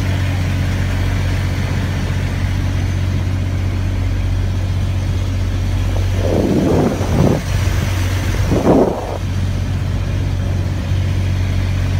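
A small wooden boat's engine running steadily at a constant speed, a low even hum. Two short loud bursts of rushing noise break over it about six and eight and a half seconds in.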